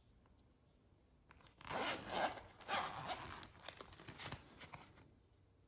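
Zipper of a zip-around semi-rigid sat-nav carrying case being pulled open in several strokes, starting about a second and a half in.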